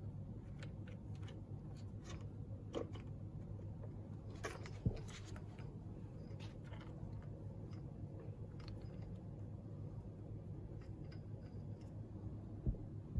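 Scattered light clicks and taps of cables and plastic connectors being handled on an electric scooter's handlebar wiring, with two sharper knocks, about five seconds in and near the end, over a steady low hum.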